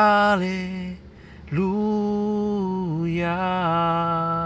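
A man singing a slow hymn unaccompanied, holding long drawn-out notes. There is a short phrase first, then a pause of about half a second, then one long held phrase that steps down in pitch.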